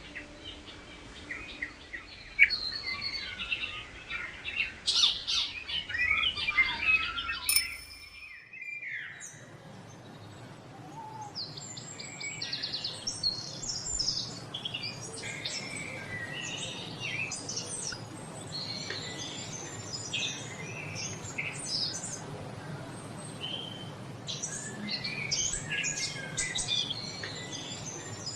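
A chorus of several small birds chirping and singing, with quick overlapping calls and trills. About eight seconds in the background changes abruptly, and after that a steady low rumble lies under the birdsong.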